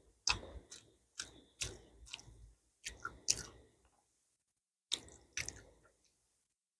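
A person chewing a mouthful of curry and rice close to the microphone: a run of short, wet chewing sounds at about two a second, a pause of over a second, then two more near the end.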